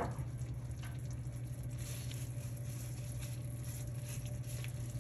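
Soft, faint taps and scrapes of a spatula mixing cherry tomatoes and parsley in a skillet, over a steady low hum.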